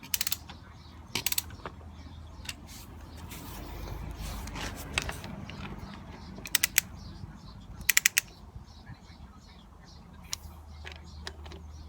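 Ratcheting torque wrench clicking in several short bursts of rapid clicks as the front fork pinch bolts are tightened to 19 Nm, over a low steady hum; a broad rushing noise swells and fades around the middle.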